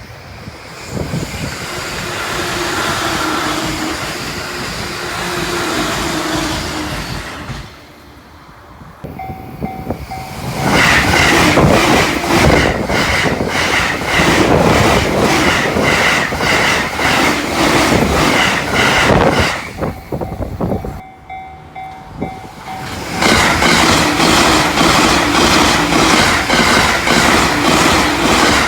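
JR Joban Line trains passing at high speed, over 120 km/h, in three short passes cut together, with breaks at about 8 and 21 seconds in. The wheels beat a rapid, even clatter over the rail joints. A steady level-crossing bell rings in the quieter gaps between passes.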